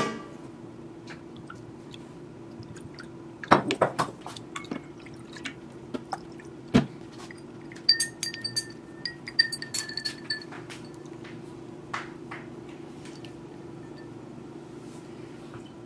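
Dishes and glassware being handled: scattered knocks and clinks, with a glass or ceramic piece ringing briefly a few times between about eight and ten seconds in, over a steady low hum.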